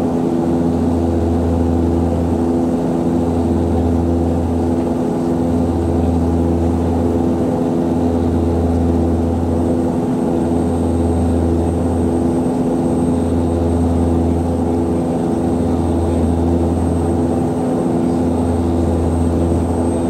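Cabin drone of an Antonov An-24RV's two Ivchenko AI-24 turboprops, a steady low propeller hum. The low hum swells and fades about every two and a half seconds, the beat of two propellers turning at slightly different speeds.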